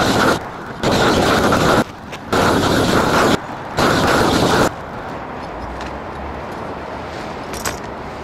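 Propane roofing torch roaring in blasts about a second long as the roofer opens and closes the flame, heating the underside of a rubber-modified bitumen torch-down roll to melt it onto the roof. Four blasts, then a quieter steady rush from about halfway through.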